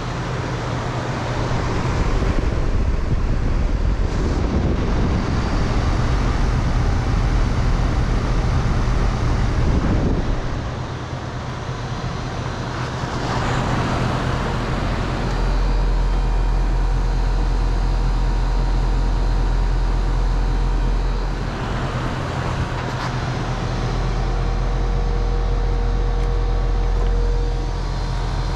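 Comfort-Aire RSG14 2.5-ton air conditioner condenser running: a steady low compressor hum under the rushing air of the condenser fan.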